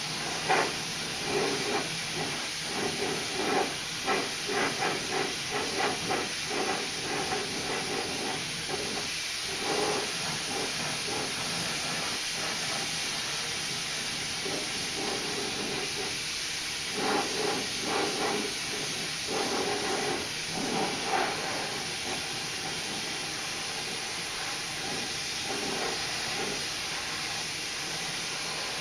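Paint spray gun hissing as it sprays clear coat, in short repeated passes that come in clusters over a steady hiss of air.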